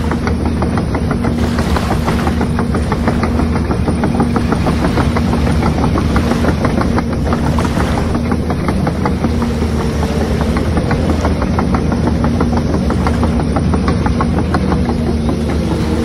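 Radio-controlled long-reach excavator running as it swings its boom and tracks across sand: a steady engine-like drone with fast, even rattling.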